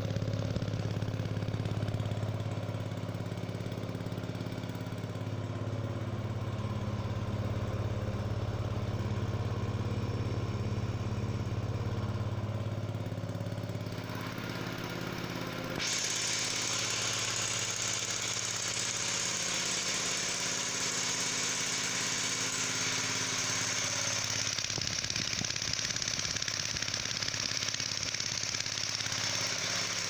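Kisankraft petrol engine running steadily, driving the vacuum pump of a single-bucket milking machine. About halfway through, a steady hiss joins in and the engine's hum becomes weaker.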